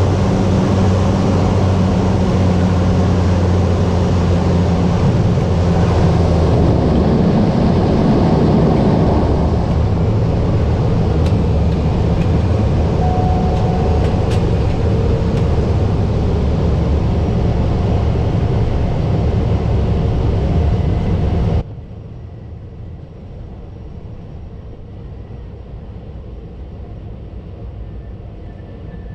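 Cessna 208B Grand Caravan's PT6A turboprop engine and propeller running with a steady drone, which changes character about seven seconds in. About twenty-two seconds in the sound drops abruptly to a much quieter steady rumble.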